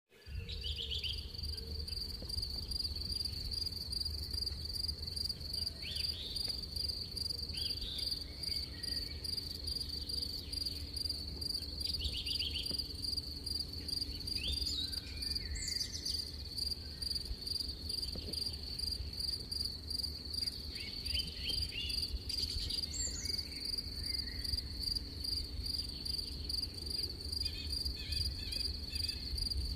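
Crickets chirping in a steady, fast, high-pitched pulsing trill, with a few brief, sharper chirps breaking in now and then over a low background rumble.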